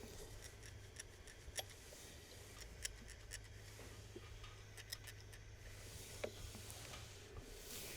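Steel steam iron pressed and slid over clothing on an ironing board: faint fabric rubbing with scattered light clicks and scrapes, and a soft hiss near the end, over a low hum.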